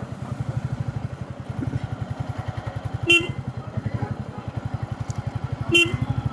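Motorcycle engine running steadily with an even low pulsing, heard from the rider's clip-on mic. Two short horn beeps sound, about three seconds in and again near the end.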